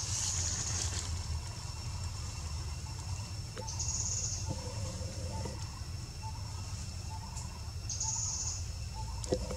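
Outdoor ambience: a steady low rumble, with a short, high buzzy call repeating about every four seconds and soft chirps in between.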